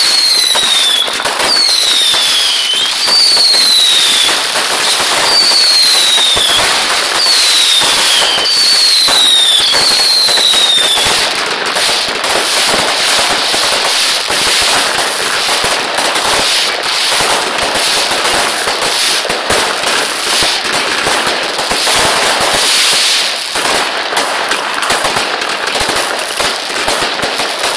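Fireworks finale barrage: a dense, continuous run of bangs and crackling. For the first ten seconds or so it carries whistles that fall in pitch, about one a second, which then stop while the rapid crackle and bangs go on.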